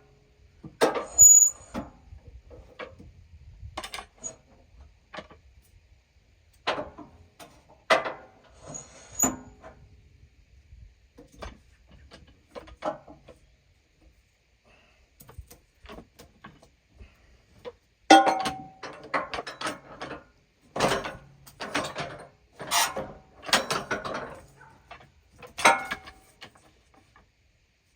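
Irregular knocks and clunks of wood and metal from handling the log and slabs on a sawmill, some in quick runs, with quiet gaps between.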